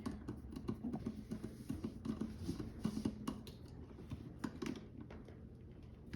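Faint, irregular small clicks and taps of pliers and copper wire being worked onto a receptacle's terminal screw.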